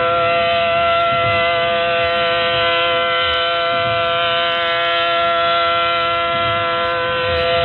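ACA Allertor outdoor warning siren sounding a steady, unwavering chord of tones during a siren test, heard from inside a moving car with road rumble underneath.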